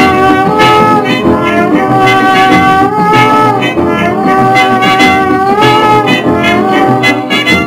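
Instrumental background music: a brass melody with gliding notes over guitar and a steady beat.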